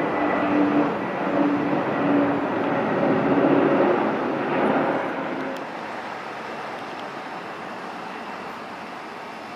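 Airplane engine noise passing by: loud with a steady tone through it for about five seconds, then fading to a quieter, steady rumble.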